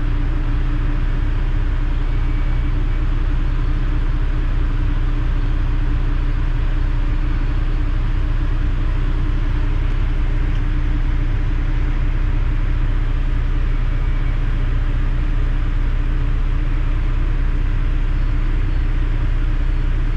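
Passenger ferry's engines running steadily under way, heard on board: a constant low rumble with a steady hum over it.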